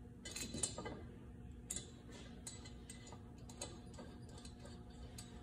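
Light clicks and taps of a small blue fixture and hardware being handled and set onto a Ford Coyote 5.0 aluminium cylinder head: a quick cluster in the first second, then single ticks scattered through the rest.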